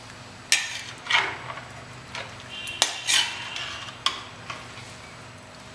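A metal spatula stirring and scraping chicken pieces in thick masala around a metal kadhai, about five separate strokes with a sharp click and a brief metallic ring near the middle, then stillness.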